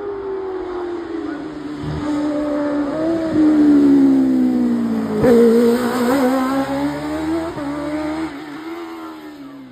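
Single-seater hillclimb racing car engine revving hard through tight bends. Its pitch slides down and back up as the throttle is lifted and reapplied, with a sharp change in note about five seconds in. It is loudest in the middle.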